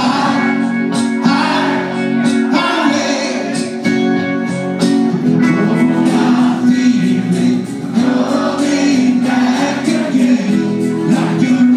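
Live rock music: acoustic and electric guitars playing together, with a sung vocal line.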